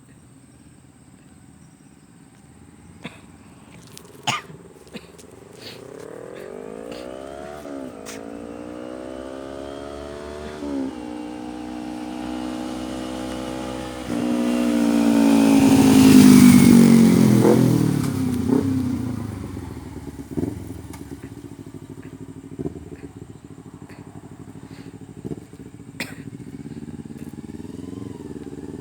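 Motorcycle accelerating hard up through the gears, its engine pitch climbing and dropping back at each shift. It is loudest about halfway through, then the pitch falls and the engine fades, and it starts climbing again near the end.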